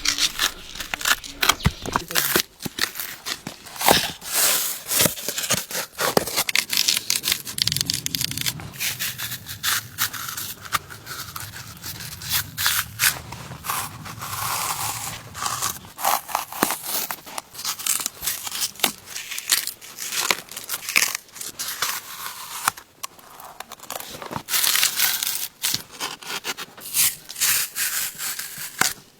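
Bark being peeled off a huang bai (Phellodendron, Chinese cork tree) trunk: repeated tearing and crackling as strips pull away from the wood.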